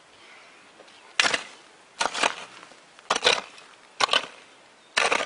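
Hand hoe blade striking the soil in steady strokes, five sharp chops about a second apart, some with a quick second knock.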